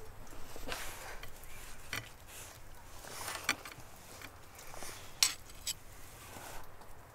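Metal serving spoon clinking and scraping against ceramic plates and the cooking pot as stuffed quince and stewed meat are dished out, in scattered clicks and short scrapes. The sharpest clink comes about five seconds in.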